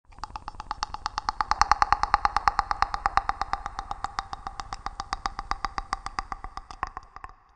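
A fast, even train of electronic pulses on one steady pitch, growing louder over the first two seconds, easing off and then cutting out near the end: a synthetic sci-fi sound effect.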